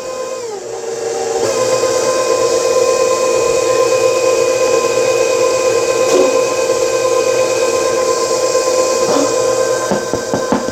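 Electric stand mixer motor running, mixing bread dough with a steady whine. It comes up to a steady speed about a second and a half in. A few light knocks near the end.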